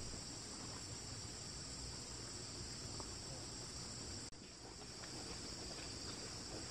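A steady, high-pitched chorus of insects droning without a break, with a brief dip about four seconds in.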